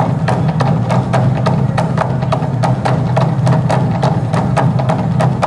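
Large Korean barrel drum (daego) beaten with wooden sticks in a fast, even rhythm of sharp strokes, about five a second, over a continuous deep drum rumble.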